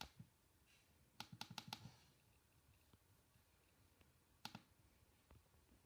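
Faint clicks on a MacBook laptop: one at the start, a quick run of about five between one and two seconds in, and a single click later.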